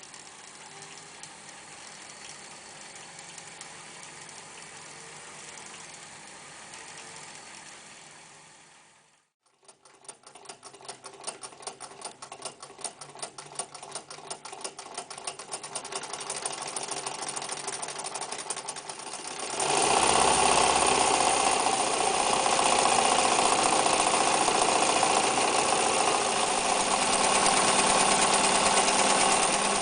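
Necchi Lycia electric sewing machine stitching: it runs steadily, stops about nine seconds in, then starts again with quick, even needle strokes that speed up, and runs fast and much louder for the last ten seconds.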